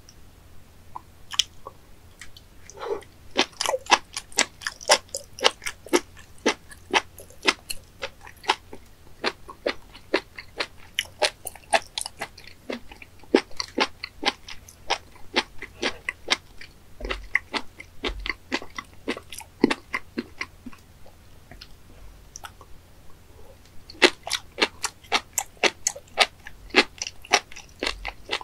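Close-up crunchy chewing of raw spoon worm (gaebul) sashimi: rapid runs of crisp clicks, thinning out past the middle and picking up again a few seconds before the end.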